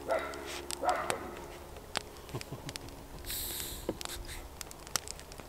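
A man drinking from a drinks can, with soft gulping sounds in the first second, then small clicks and knocks of the can and a plastic soda bottle being handled on a wooden picnic table, and a short hiss about three seconds in.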